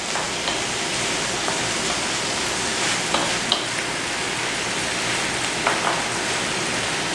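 Pasta and sausage sauce sizzling steadily in a hot skillet as it is stirred, with a few light clicks of the stirring utensil against the pan.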